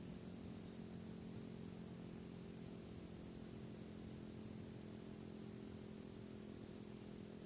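Faint insect chirping, short high notes in irregular pairs and threes a fraction of a second apart, over a steady low hum.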